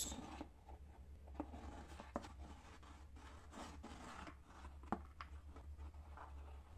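Faint rubbing and scraping from a plastic bottle of liquid silicone glue being squeezed and drawn along the inside of a cardboard form, with a few light ticks.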